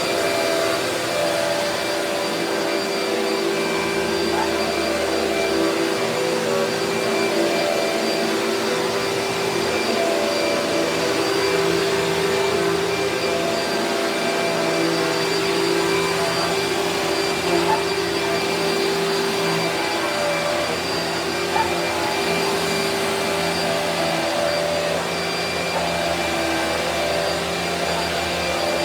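A vacuum cleaner running steadily with a constant motor whine and air rush, with a couple of brief knocks partway through.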